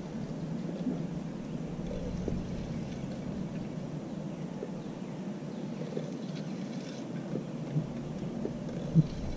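Wind rumbling steadily on the microphone, with a few faint knocks and one sharper knock near the end.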